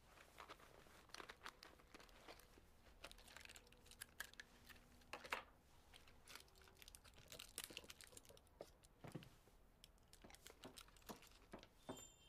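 Faint crinkling and scattered small clicks of something being handled, like paper or wrapping turned over in the hands, in a quiet small room.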